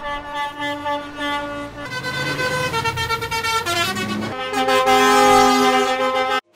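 Truck air horns blowing chords of several tones at once, the pitch shifting in steps every second or so, loudest near the end and cut off suddenly just before it ends.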